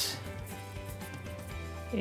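Soft background music with steady sustained notes.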